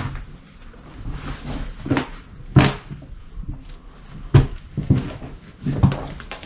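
Footsteps crunching and thudding over a floor strewn with broken glass and debris, about seven uneven steps.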